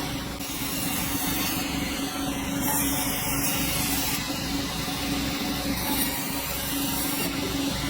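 Sawmill machinery running steadily: a constant hum under a hissing, rubbing noise.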